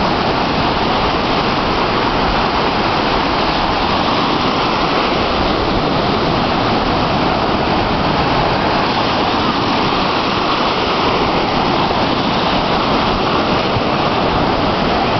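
Ocean surf breaking and washing in the shallows, a loud, steady rush of water.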